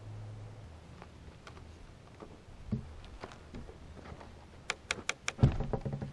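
Wooden knocks and creaks from a homemade scrap-lumber log lifter being levered, with a quick run of four sharp clicks and then a heavy thud about five and a half seconds in as the log is raised onto the stand.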